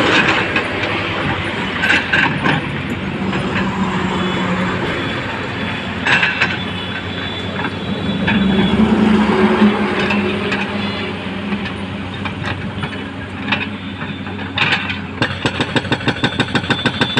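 Passing highway traffic, a bus going by at the start, mixed with the Komatsu excavator's diesel engine running. About 15 s in, the excavator's hydraulic breaker starts hammering concrete at about five blows a second.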